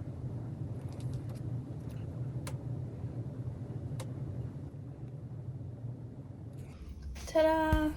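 A steady low rumble with a few faint clicks, then a voice calling out "Ta-da!" near the end.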